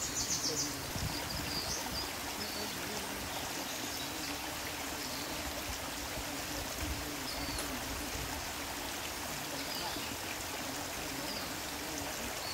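Shallow stream water flowing and trickling steadily over flat rock.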